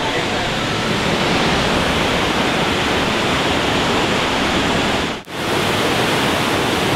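Waterfall rushing: steady, loud noise of falling water that cuts out briefly about five seconds in, then resumes.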